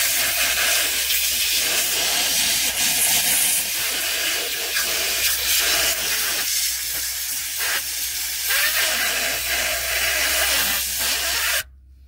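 Compressed air hissing steadily as it is blown into an opened fuel tank selector valve under a rag, blasting out leftover gasoline and lubricant. It cuts off suddenly near the end.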